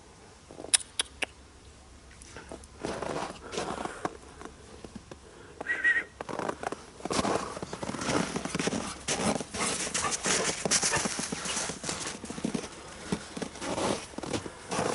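Dogs running and playing, their paws thudding and scuffing on the ground in quick irregular footfalls that grow busy and dense from about seven seconds in, with a short high squeak just before.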